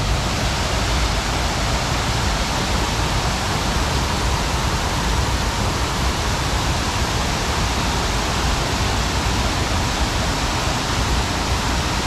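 Water pouring over a tiered stone cascade fountain into a shallow pool, a steady, even rush of falling water.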